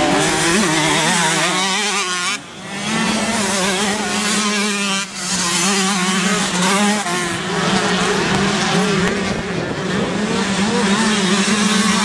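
125 cc two-stroke motocross bikes racing, engines held at high revs, with the throttle briefly closed about two and a half seconds in and again about five seconds in.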